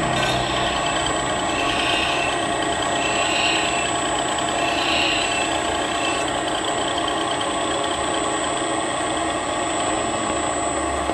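Electric grinding machine for sharpening hair clipper blades, running with a steady motor hum. Three brief higher-pitched swells come in the first half, about a second and a half apart.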